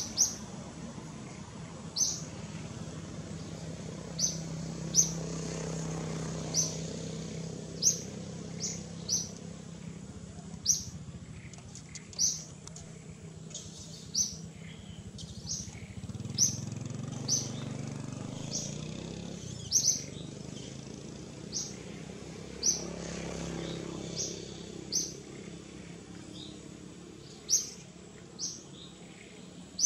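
A small bird giving short, sharp, high chirps over and over at irregular intervals, over a low background rumble that swells and fades a few times.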